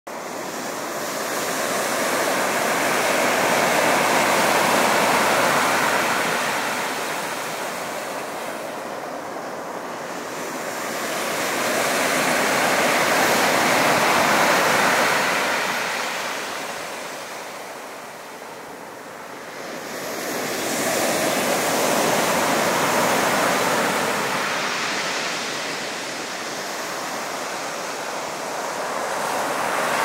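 Storm surf breaking on a pebble beach. The rush of water swells and ebbs in three long surges, about one every nine seconds.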